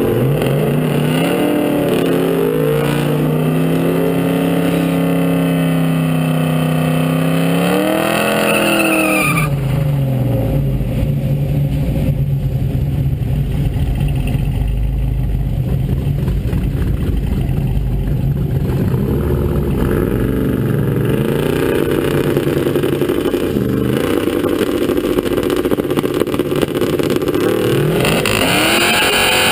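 Car's engine revved and held at high revs for several seconds, then dropping suddenly to a low steady idle. It is revved up and down again later, and rises sharply near the end as the car gets ready to leave the starting line.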